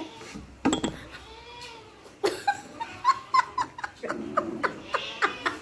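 People laughing in short bursts, with pauses between.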